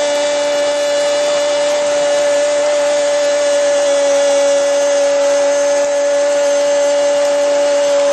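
A Spanish-language radio football commentator's goal cry, a long "gooool" held as one unbroken, steady note at full voice.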